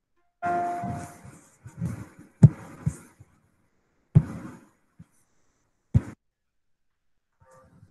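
A short notification chime that starts suddenly and fades over about a second, then several sharp mouse clicks and small knocks over the next few seconds, the loudest about two and a half seconds in.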